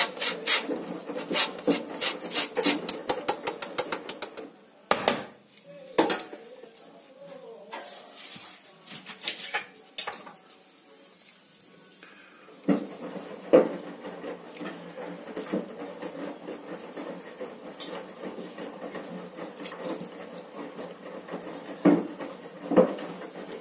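A lemon being rubbed on a metal grater in quick, even rasping strokes for the first four seconds or so, then a few scattered knocks and clinks of kitchen utensils and a plastic tub over a faint steady hum.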